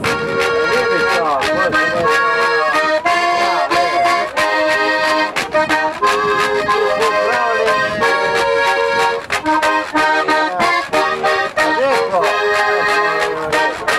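Accordion playing a lively folk tune in held chords that change every second or so, with a steady clicking beat running under it.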